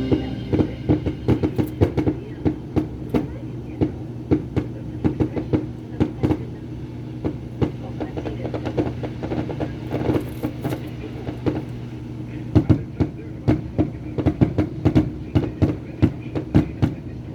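A vehicle running steadily on the road, with a low drone and many irregular sharp rattles and clicks, busiest near the end.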